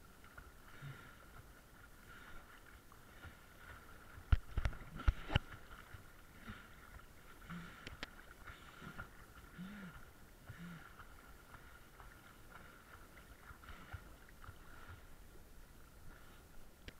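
Sea water lapping and sloshing around a waterproof camera at the surface, with a cluster of sharp knocks about four to five seconds in and a faint steady high tone underneath.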